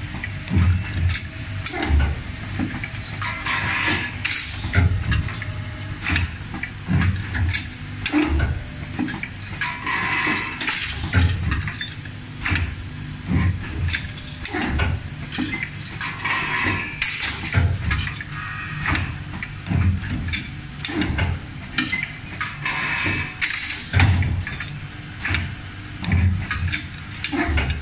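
Automatic market-hanger making machine running: its vibratory bowl feeders hum steadily while small metal parts clink and rattle, with repeated sharp clacks from the assembly station. A short hiss comes about every six to seven seconds.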